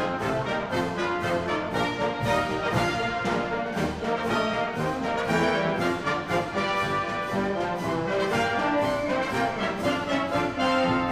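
Military brass band playing, trumpets, euphoniums and sousaphones together over a steady beat.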